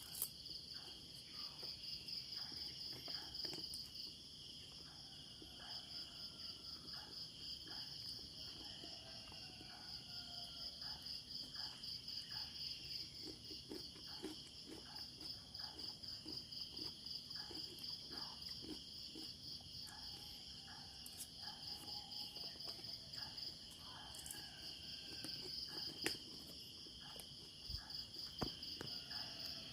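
Crickets chirping in a steady, fast-pulsing trill, with a couple of sharp clicks near the end.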